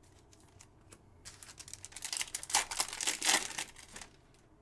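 Foil wrapper of a Select football card pack being torn open and crinkled by hand: a few faint ticks, then about a second in a run of crackling that lasts nearly three seconds.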